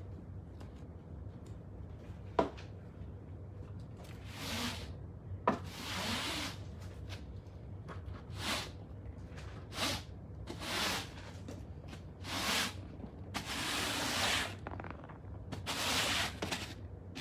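Long-handled bristle broom sweeping foam floor mats in short swishing strokes, about one every second or two. Two sharp knocks come in the first few seconds.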